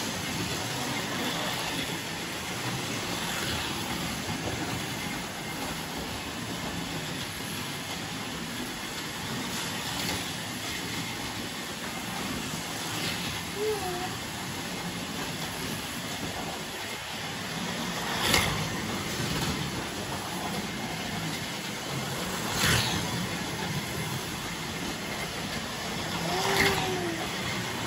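Carrera slot cars' small electric motors whirring steadily as they run around the plastic track, with three sharp clacks in the second half.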